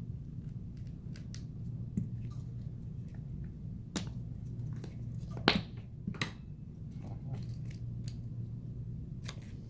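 Scattered small clicks and taps of a hand opening tool working at an iPhone XR's screen as it is pried away from its adhesive seal, the sharpest click about five and a half seconds in, over a steady low hum.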